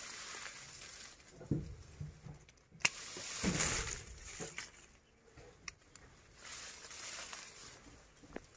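Leaves and twigs rustling as branches are handled, with a few sharp snips of hand pruning shears cutting twigs, the loudest about three seconds in.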